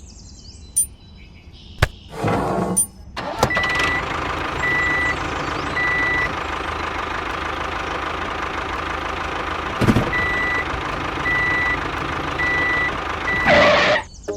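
Vehicle engine running steadily while a reversing alarm beeps about once a second, in a run of three beeps and then, after a pause, four more; a single knock sounds midway.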